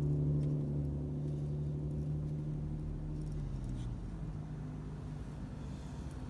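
A motor vehicle's engine running close by, a steady low hum that fades away about three and a half seconds in, leaving a low rumble.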